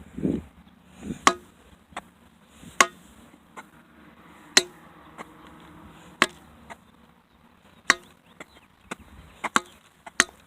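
A digging tool striking into the ground over and over, one sharp chop about every second and a half.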